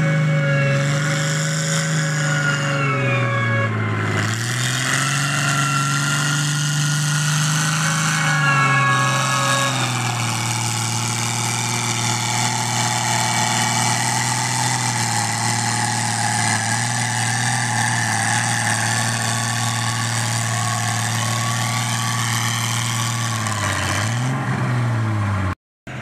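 Antique tractor engine running steadily. Its pitch sags and recovers a few seconds in, then holds a little lower. Just before the end the sound cuts off suddenly.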